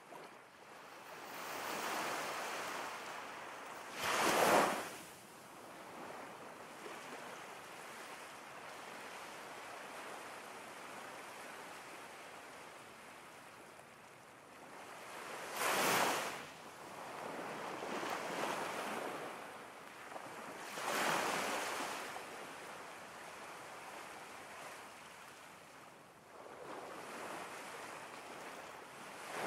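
Ocean surf: waves washing in and breaking in slow swells every several seconds, with a few louder crashes, the first about four seconds in.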